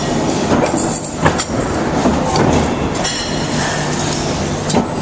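Factory metal-forming machinery running: a machine shaping metal discs into vessel parts, with a steady low hum under clattering noise and a few sharp metallic knocks.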